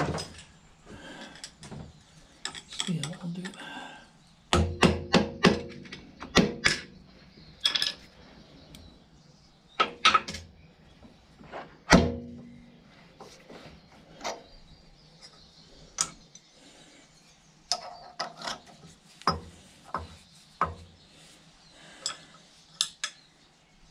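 Drill bits and small metal tools being handled and picked through: irregular clinks and knocks, with a quick cluster about five seconds in and a single loud knock about twelve seconds in.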